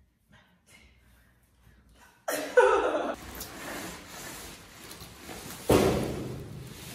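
Cardboard and bubble-wrap packaging being torn and pulled apart by hand, crinkling and crackling in two loud bursts, about two seconds in and again near six seconds, each trailing off.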